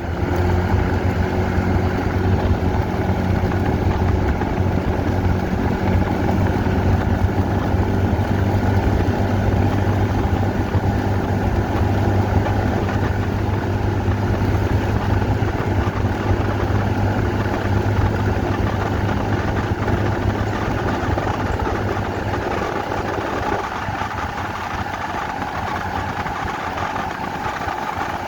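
A motor engine running steadily with a low hum; the hum's tone changes slightly about 23 seconds in.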